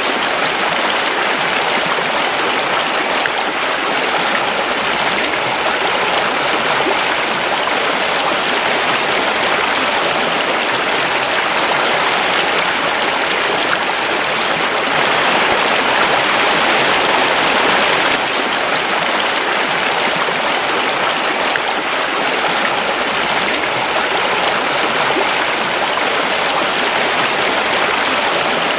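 Forest river flowing over rocks: a steady rushing and babbling of water, swelling slightly about halfway through.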